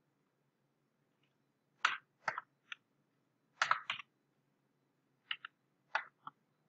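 Computer keyboard keys being typed on: about nine short, irregular key clicks in small groups, starting about two seconds in.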